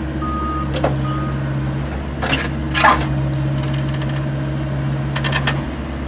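Bobcat mini excavator's diesel engine running steadily while its arm moves, with a reversing alarm beeping a few times in about the first second. Two sharp clanks between two and three seconds in and a quick rattle of clicks near the end, from the steel bucket working against the boulder.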